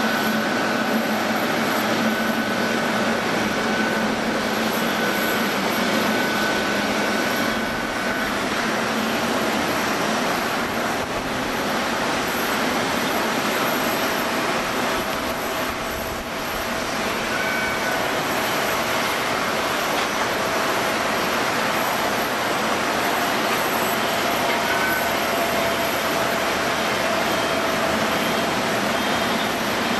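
Boeing 777's twin jet engines running at taxi power: a steady rushing whine with faint high tones on top.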